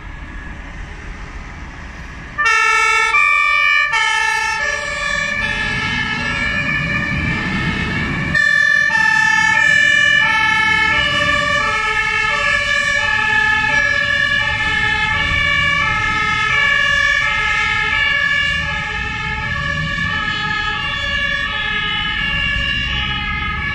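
German fire-brigade two-tone siren (Martinhorn) alternating between a high and a low note. It switches on suddenly about two and a half seconds in and gets louder about eight seconds in. Under it is the diesel engine of a fire engine pulling out of the station.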